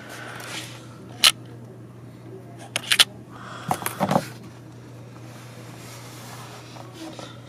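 Red double-sided adhesive tape being handled and laid along an iMac's aluminium frame: sharp clicks about a second in and near three seconds, then a short stretch of rubbing and pressing sounds about four seconds in, over a low steady hum.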